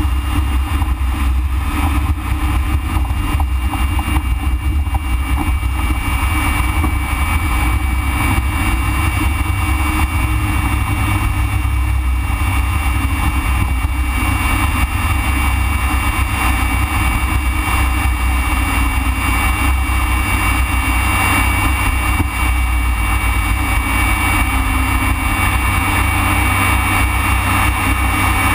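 Single Rolls-Royce Viper turbojet of a BAC Strikemaster heard inside the cockpit: a steady, loud deep rumble with a thin high whine held at one pitch.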